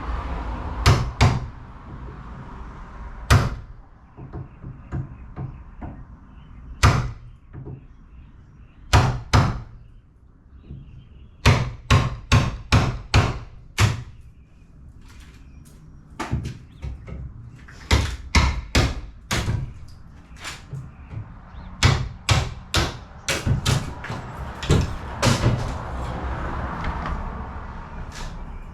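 Repeated hammer blows, some single and some in quick runs of several strikes about three a second.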